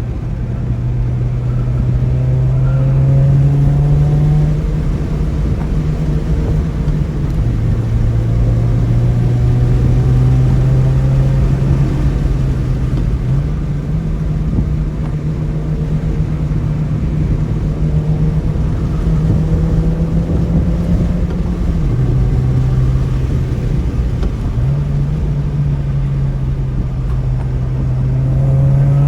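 Ford car engine rumbling while driving, its note climbing slowly and stepping down and back up several times, over steady wind noise.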